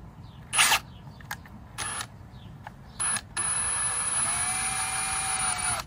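Hart cordless drill driving a screw into a plastic car bumper. It gives three short trigger pulls, then runs steadily for about two and a half seconds, its pitch rising as it spins up, and stops just before the end.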